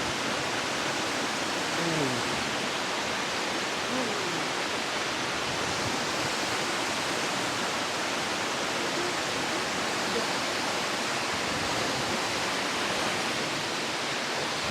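Waterfall, water pouring steadily as a dense, even rush.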